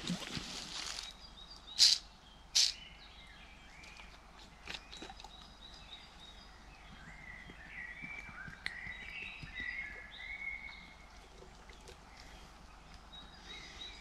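Faint woodland birdsong, a series of short chirps that is busiest in the middle of the stretch. Near the start there is rustling and two sharp clicks about two seconds in, as a water bottle is handled and opened.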